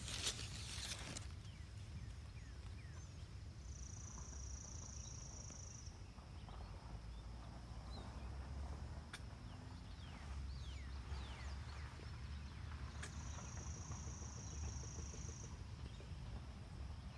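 Outdoor ambience with a low wind rumble on the microphone. Two high, even trills of about two seconds each come a few seconds in and again past the middle, with faint short chirps between them.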